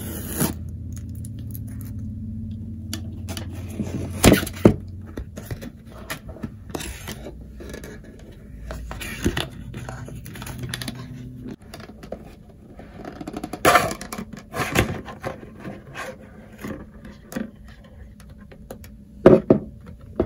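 Plastic and cardboard packaging of a GoPro camera box being handled and opened, with scattered scrapes and sharp clicks. A steady low hum runs under the first half and stops about halfway through.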